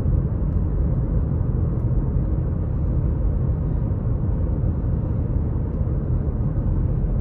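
Steady low rumble of a moving car heard from inside its cabin: tyre and engine noise at low street speed.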